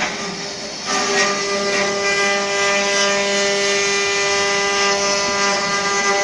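Multi-spindle 4-axis CNC wood router running: a steady machine whine over a rushing hiss. It dips briefly at the start and picks back up about a second in.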